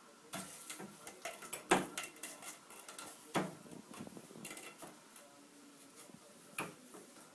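A cat batting a thin straw around an empty bathtub: irregular light taps, clicks and scrapes of the straw and paws on the tub's hard surface, the loudest about two seconds and three and a half seconds in.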